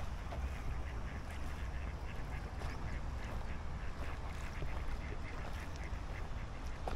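Ducks quacking, with many short calls scattered through, over a steady low rumble.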